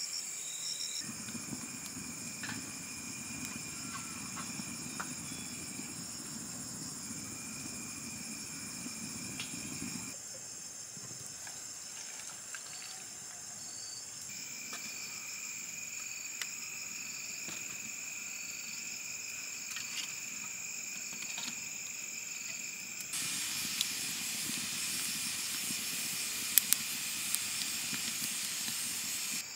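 Insects chirring steadily, with a low rushing noise under them for the first third. From about 23 s in, a wood fire burning in the clay oven's firebox hisses with sharp crackles.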